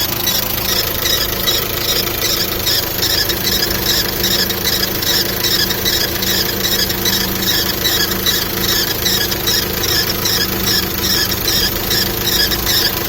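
VW Caddy engine running with a rhythmic chirping squeal from the timing belt drive, about two to three chirps a second over the steady engine hum. The squeal shows up on a cold engine after a timing belt change; a workshop blames the timing belt pulleys, and the owner traces it toward the crankshaft.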